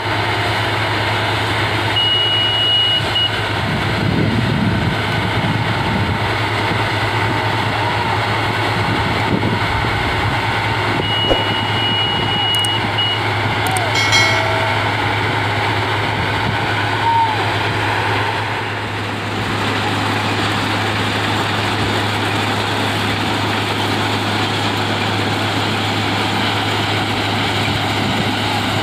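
Plasser ballast cleaning machine running with a steady, loud diesel drone. A high steady beep sounds twice, about a second each time, a couple of seconds in and again around eleven seconds in.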